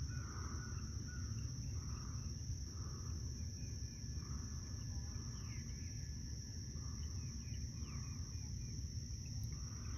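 Morning wildlife ambience: a short call repeated about every two-thirds of a second, over a steady high-pitched insect buzz and low wind rumble.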